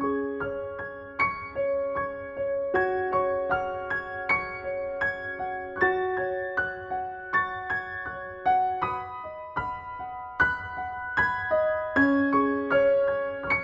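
Gentle instrumental background music: a keyboard plays a soft melody of ringing notes that each fade after they are struck.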